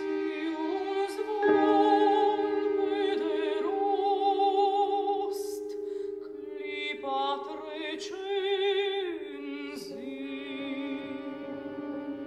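Contemporary classical vocal chamber music: several voices sing long held notes with vibrato over a steady low held chord, with the upper parts shifting pitch and one line sliding slowly downward about nine seconds in.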